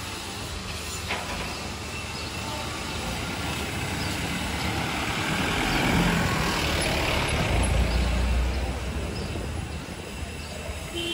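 A heavy vehicle passing close by: a rumbling swell that builds through the middle, peaks about seven to eight seconds in with a deep low rumble, then fades, over steady street noise.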